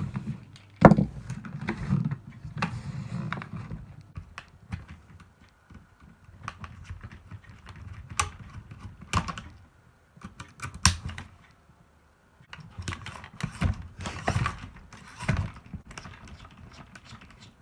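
Hard plastic parts of an old toy robot being handled and pulled apart: irregular clicks, taps and knocks.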